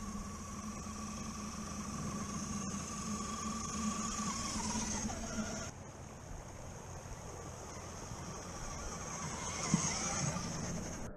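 Electric motor and gear whine of a radio-controlled scale crawler truck driving: a steady whine that slides down in pitch as it slows about five seconds in. After an abrupt change it builds again, with a sharp click near the end.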